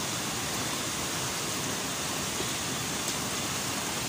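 White water of a river cascade rushing over large boulders: a steady, even rush of water.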